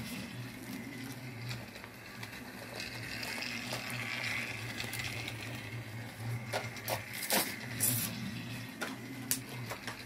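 Battery-powered Trackmaster Thomas toy engine's small electric motor running with a steady hum as it circles plastic track. A few sharp plastic clicks and knocks come in the second half, as batteries are worked into a toy engine's battery compartment.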